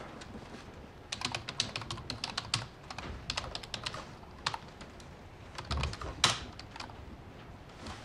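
Computer keyboard being typed on: quick runs of keystrokes for about three seconds, then a pause, a few more keys and one harder keystroke about six seconds in.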